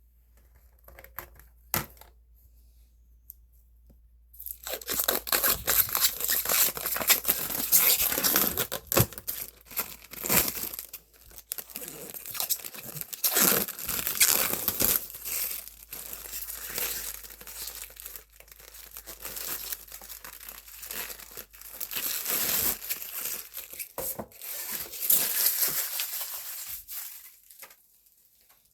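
Protective plastic film being peeled off acrylic sheet, a crackling, tearing sound that starts about four seconds in and runs on with short pauses before stopping near the end.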